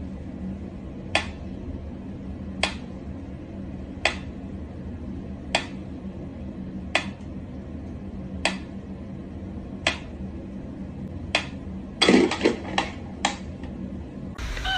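Mechanical pendulum metronome ticking slowly and evenly, about one sharp click every second and a half. Near the end, a quick clatter of several louder knocks.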